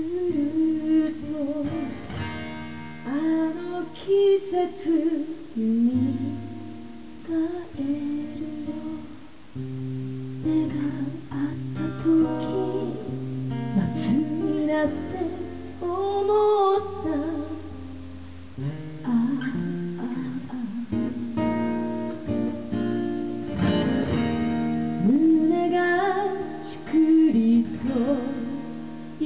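A song performed live: a steel-string acoustic guitar strummed, with a woman singing over it.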